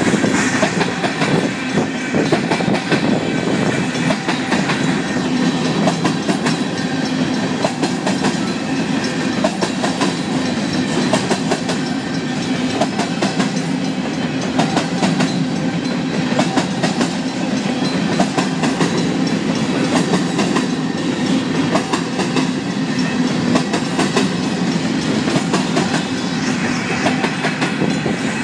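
Union Pacific covered hopper cars of a grain train rolling past close by: a loud, steady rumble of steel wheels on the rails, with frequent clicks as the wheels pass over the rail joints.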